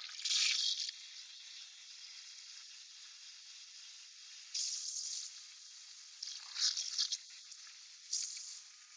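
Oxy-acetylene cutting torch hissing steadily as it burns through a steel bracket plate, with several louder rushes of hiss: about a second in, around five and seven seconds, and near the end.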